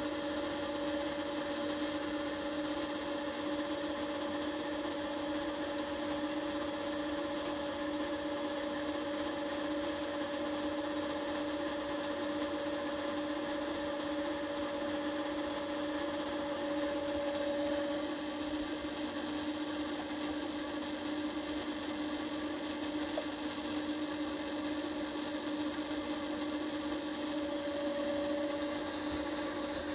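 Mini milling machine's brushless servo spindle motor running steadily, a constant hum with a thin high whine above it.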